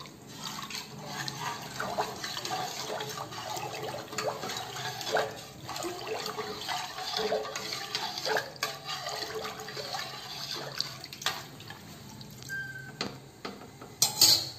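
Thin masala-and-water mixture being stirred in a pressure cooker, sloshing and splashing with small knocks against the pot. The stirring eases off near the end, followed by a brief sharp clatter.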